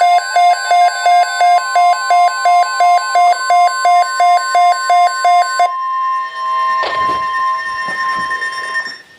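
NOAA Weather Radio's steady 1050 Hz warning alarm tone, which signals an emergency alert, here a tornado watch. For about the first five and a half seconds a rapid electronic beeping, about three beeps a second, runs over it. Then the tone sounds alone with a few faint knocks and cuts off near the end.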